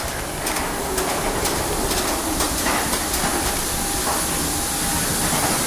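Steady rushing air noise of an airliner cabin, with clothing brushing against the microphone and soft knocks about twice a second.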